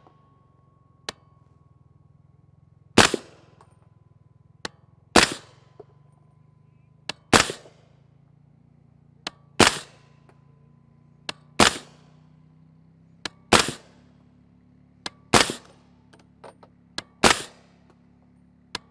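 Suppressed 300 Blackout AR-15 pistol firing 220-grain subsonic rounds semi-automatically through a JK Armament rifle-kit suppressor: about eight reports, roughly two seconds apart, each preceded a moment earlier by a light click.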